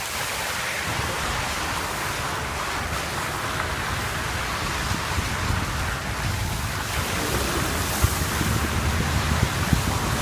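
A car driving slowly over a wet, slushy snow-covered street, heard from the car: a steady rushing noise of tyres in slush and wind on the microphone over a low rumble. A few knocks come near the end.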